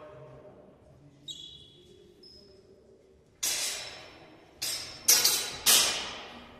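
Steel longswords clashing: a faint ringing clink, then about five sharp blade strikes in quick succession in the second half, each echoing in a large sports hall.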